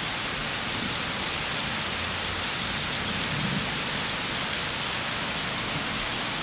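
Heavy rain falling steadily, splashing on a wet road and lawn: an even, unbroken hiss.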